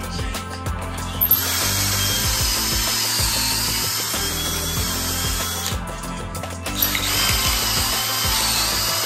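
A handheld power tool running in two long runs of about four seconds each, with a high whine that wavers in pitch, over background music with a steady bass line.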